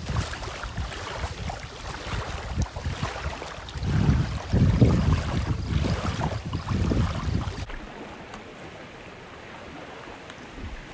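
Wind buffeting the microphone in uneven gusts, then a sudden cut about eight seconds in to a much quieter, steady outdoor hiss.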